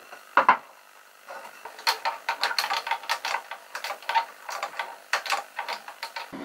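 A single wooden knock as a pine board is set down, then a steel bar clamp being tightened over a glued panel: a quick, irregular run of metallic clicks and rattles from the screw handle and the sliding jaw.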